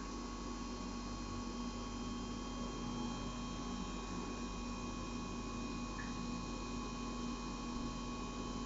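Kern MMT CNC milling machine running steadily: an even hum with several constant, higher tones from the spindle and drives.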